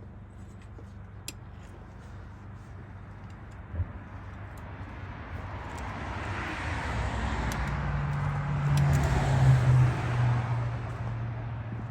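A motor vehicle passing by: engine and road noise swell over several seconds, peak a little past the middle, and fade away. A few light clicks and a knock come before it.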